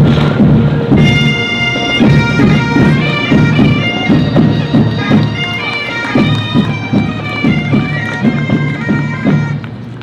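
Bagpipes playing a marching tune over a steady drumbeat. The pipes come in about a second in and stop just before the end.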